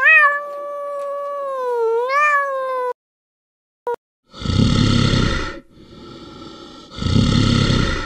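Domestic cat giving one long meow that dips and then rises in pitch near the end, cut off after about three seconds. From about four seconds in, a brown bear makes two loud, rough growling calls with a quieter rasp between them.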